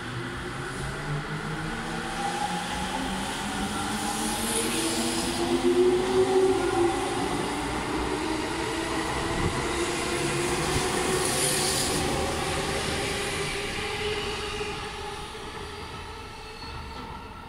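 JR East E231 series electric train pulling away from the platform: its traction motors whine, rising steadily in pitch as it accelerates, over rumbling wheel and rail noise. The sound fades in the last few seconds as the train draws away.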